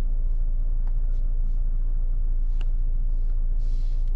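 Steady low rumble of a car's cabin with the car standing still and its systems running, with a couple of faint clicks.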